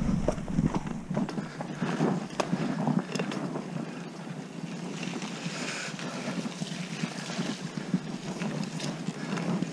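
Wind buffeting the microphone over the steady rush of a mountain bike rolling along a trail, with a few light clicks in the first few seconds.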